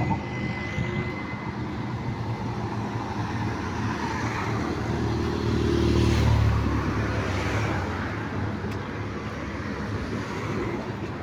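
Steady road traffic on a multi-lane bridge carriageway: a continuous rumble of car engines and tyres. About halfway through, one vehicle passes close, its low engine sound swelling and then fading.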